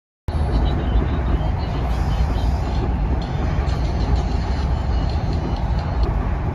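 Passenger train in motion heard from inside the carriage: a steady rumble of running noise, heavy in the low end, which cuts in suddenly after a moment of silence.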